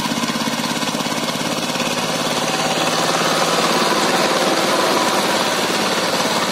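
Single-cylinder diesel engine of a two-wheel power tiller chugging steadily under load as it drags its cage wheels through a muddy paddy field. It gets louder about halfway through.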